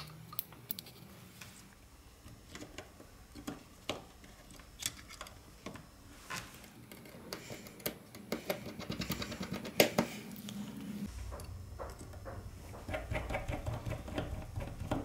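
Irregular small clicks and taps of repair tools and parts on a Gigaset ME Pro smartphone being worked on, bunching into a quick flurry of clicks about two-thirds of the way through. A low steady hum comes in shortly after.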